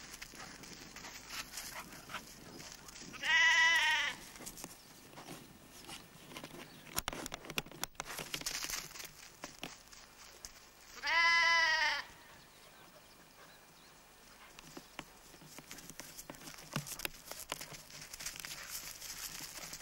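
A lamb bleating twice. Each bleat is a wavering call of about a second, and the two come about seven seconds apart.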